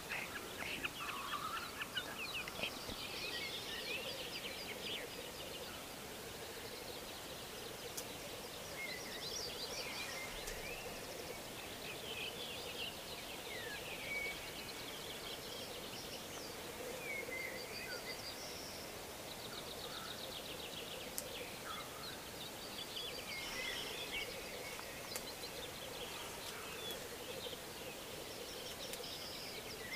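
Black grouse cocks lekking: a continuous low bubbling chorus, with other birds chirping and trilling higher above it.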